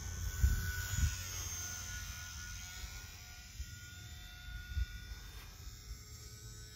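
Faint whine of a Parkzone UMX Pole Cat RC plane's electric motor and propeller in flight, its pitch drifting slightly as the plane moves about. Beneath it is low rumbling from wind on the microphone, with two stronger gusts about half a second and a second in.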